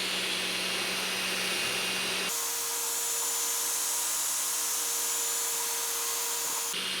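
3D printer running while printing PLA: a steady mechanical hum and hiss with thin whining tones from its stepper motors and fans. The tones change abruptly about two seconds in and change back near the end.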